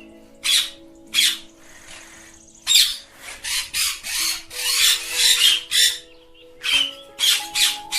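Ringneck parakeets giving short, harsh squawks again and again, a dense run of them in the middle, over background music with low held notes.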